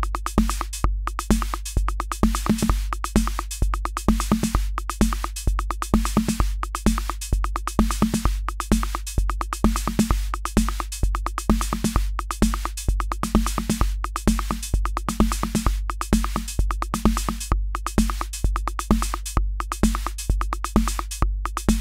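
Akai Rhythm Wolf analog drum machine playing a steady looped pattern. A low kick drum hits about twice a second under fast hi-hat ticks, and short pitched bass notes move around the beat.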